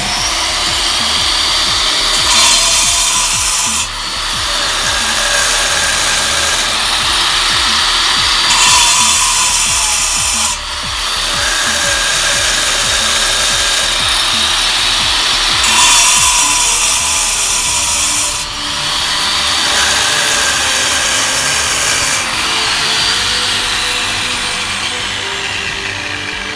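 Angle grinders with diamond cutting discs cutting masonry blocks: a steady whine and gritty hiss. Every couple of seconds the cut switches between a louder, harsher-hissing one and a quieter one, a standard diamond disc against the low-noise Nozar Twin Matrix Silentcut disc.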